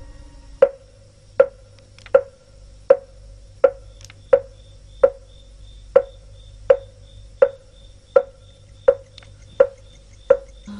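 Wooden fish (mõ) struck with a wooden mallet in a slow, steady beat, about fourteen knocks at roughly one every three-quarters of a second, each with a short ringing tone. It keeps time for Buddhist prayer.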